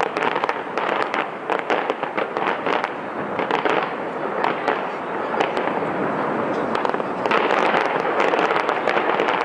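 Fireworks display: a rapid, dense run of bangs and crackles over a continuous rumble of noise, growing heavier about two-thirds of the way through.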